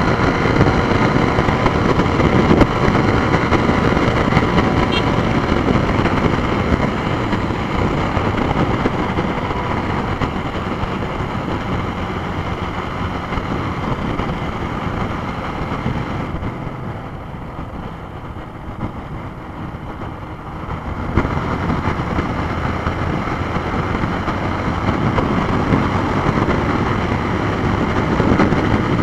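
Yamaha Fazer YS250 single-cylinder engine running through its stock exhaust at road speed, mixed with wind rush on the microphone. A little past the middle the sound drops for a few seconds, then picks up again.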